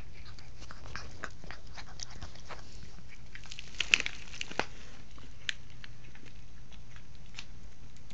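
Domestic cat noisily chewing a slice of ham: a run of irregular wet smacking and clicking bites, with a louder cluster about four seconds in, over a steady low hum.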